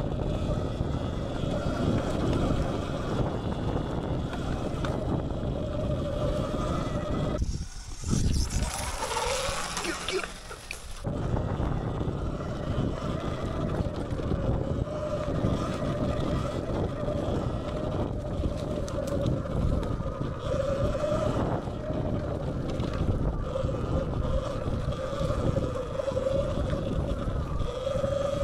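Sur-Ron Light Bee X electric dirt bike riding hard on a dirt trail: a motor whine that wavers in pitch with the throttle, over a steady rumble of wind on the microphone and tyres on the ground. For a few seconds about eight seconds in, the rumble drops away and a hiss takes over.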